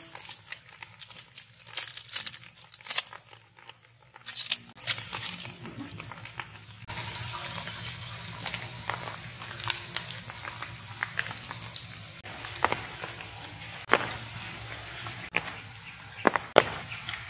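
Pandan leaves rustling and scissors snipping through them, a series of sharp clicks and rustles. About seven seconds in the sound changes to outdoor background with a steady high-pitched hum and a few scattered clicks.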